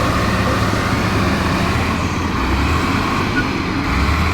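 Heavy diesel truck engine running with a steady low rumble that swells and eases slightly.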